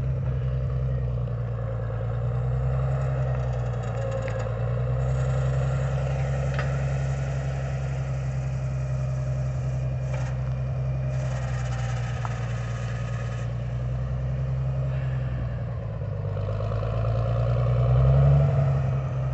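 Farmall 706 tractor engine running steadily at low speed, picking up briefly near the end.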